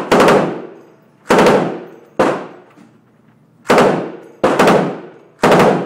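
M249 SAW light machine gun firing about six short bursts of full-auto 5.56 mm fire in quick succession, each burst ringing off in the reverberant indoor range before the next.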